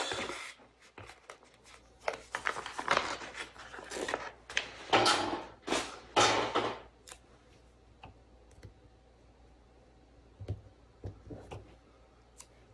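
Paper sticker sheet rustling and crinkling as it is flexed and handled and stickers are peeled off, for about seven seconds; then only a few light clicks and taps.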